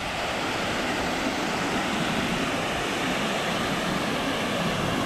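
Steady rushing of river water, an even, unbroken roar of a fast stream or waterfall.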